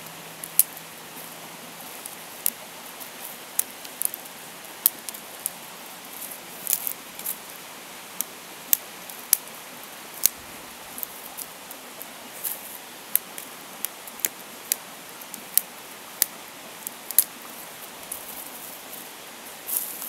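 Dry twigs snapping and clicking, irregularly, one or two sharp snaps a second, as kindling is broken and laid into a stone fire pit, over a steady hiss.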